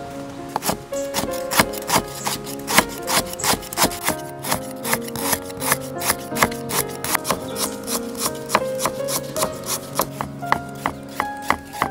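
Cleaver chopping a vegetable stalk into thin slices on a wooden chopping block: quick, irregular knocks several times a second, starting about half a second in, over background music.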